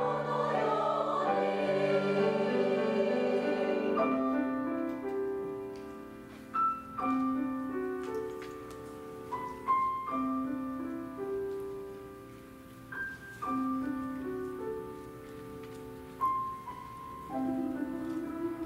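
Women's three-part choir singing with grand piano accompaniment; about four seconds in the voices stop and the piano carries on alone, playing slow, spaced notes and chords that ring and fade.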